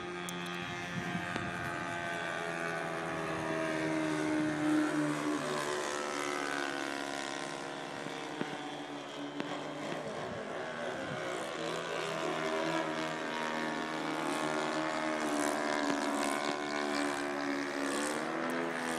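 Propeller engines of radio-controlled model airplanes droning overhead, more than one at once. The pitch slides down as a plane passes, about a quarter of the way in and again near the end.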